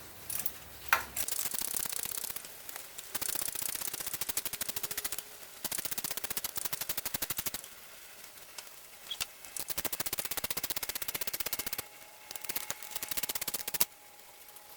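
Rapid clicking of a ratchet tool on a 16 mm socket, in several bursts of a second or two each, as a belt pulley's mounting bolt is run out.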